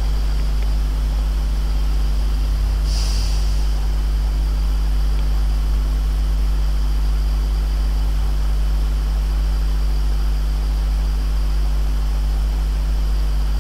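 Steady low electrical hum, like mains hum on the recording, with an even hiss over it. A short burst of hiss comes about three seconds in.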